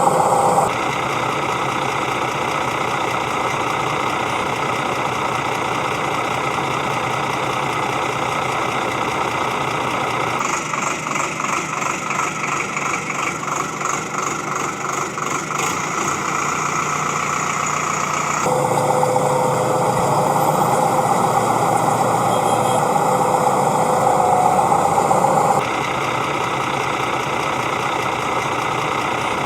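A steady, engine-like mechanical running sound. It changes abruptly three or four times, and one stretch in the middle has a fast rhythmic pulsing.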